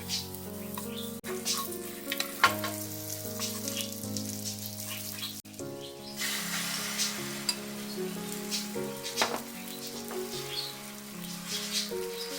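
Food sizzling and crackling in a frying pan, over soft background music.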